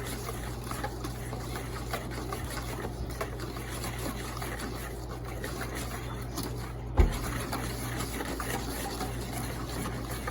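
A whisk stirring a thick mayonnaise-based sauce in a bowl, steady with many small clicks, as extra apple cider vinegar is worked in to thin it. A single heavy thump comes about seven seconds in.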